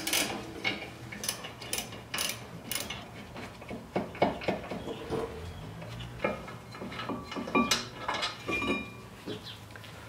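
Wrench clinking and clicking on the 16 mm caliper carrier bolts at a BMW E36 325is brake hub as they are undone, in short irregular metal knocks, with a few brief squeaks near the end.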